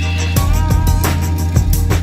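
Background music with drums and a steady beat comes in about half a second in, over a steady low hum.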